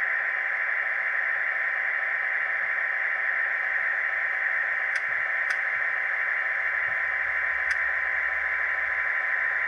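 ESU LokSound Select sound decoder playing a diesel locomotive's engine-running sound through the model's tiny 14 × 25 mm speaker: a steady, thin sound with no deep rumble. A few faint clicks come through about halfway in and again later.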